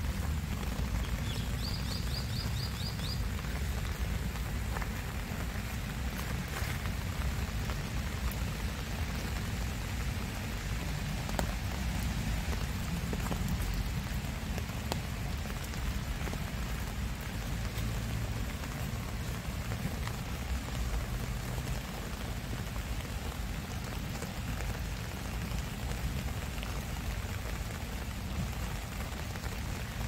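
Steady rain falling on garden foliage, with a low rumble underneath. About two seconds in, a bird gives a short run of quick high notes.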